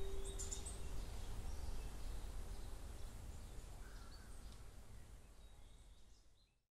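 The last plucked note of a small nylon-string guitar rings on and dies away within the first second. Then outdoor ambience: a low, steady rumble with a few faint bird chirps, fading out to silence near the end.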